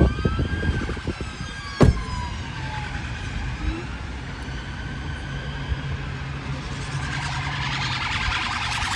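Police van siren wailing in slow rising and falling sweeps as it passes, growing louder toward the end, over traffic noise. A sharp knock about two seconds in.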